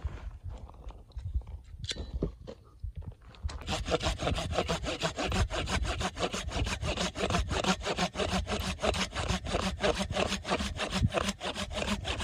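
A saw cutting through wood for firewood, in quick, even back-and-forth strokes, about five a second, that get going about three and a half seconds in.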